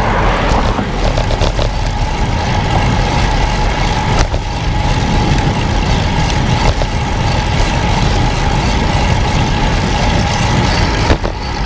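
Steady wind rush and tyre noise from a road bike ridden on pavement in gusty wind, heard through an action camera's microphone, with a faint steady hum throughout.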